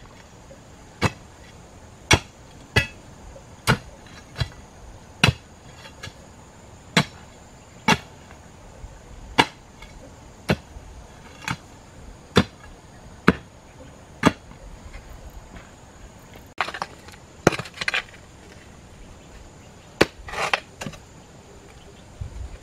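Digging hoe chopping into hard, stony soil: sharp strikes about once a second, then a few rougher, clattering bursts of strikes and scraping near the end.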